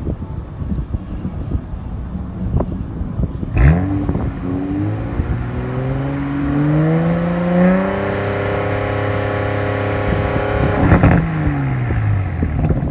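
2020 Toyota GR Supra's engine and exhaust being revved while stationary: a sharp blip, then a steady climb in revs held for about three seconds. When the throttle is released, the exhaust pops and crackles and the revs fall away.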